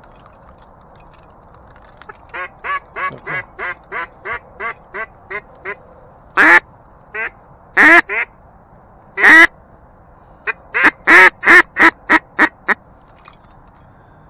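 Mallard duck call blown by a hunter. First comes a run of about a dozen quacks that grows fainter, then a few loud single quacks, and near the end a quicker run of quacks.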